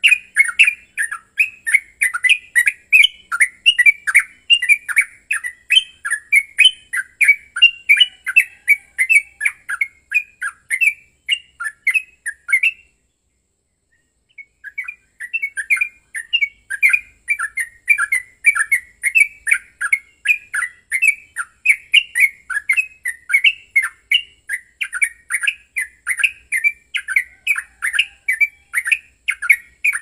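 Yellow-vented bulbul (trucukan) singing a rapid, unbroken run of short chattering notes, several a second, in the agitated 'gacor ropel' style. The song stops for about two seconds a little before halfway, then starts again.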